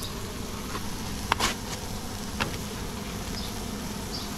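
A steady buzzing drone, with a few short clicks: two close together about a second and a half in, and one more a second later.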